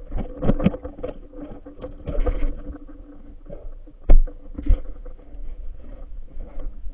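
Muffled bumps and rubbing from a phone camera being handled underwater, over a faint steady hum, with one sharp knock about four seconds in.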